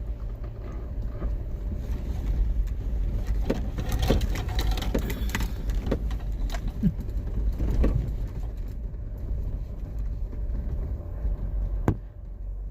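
Car driving slowly over a rough, potholed road, heard from the cabin: a steady low rumble of engine and tyres, with knocks and short creaks as it goes over the bumps, busiest in the middle. A sharp click comes near the end, after which the rumble quietens.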